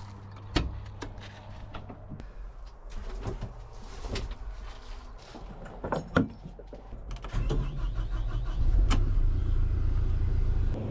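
A few sharp clicks and knocks, then about seven seconds in a vehicle engine starts up and runs loudly with a deep, steady sound. This is most likely the Bergmann C815 all-terrain dump truck being started.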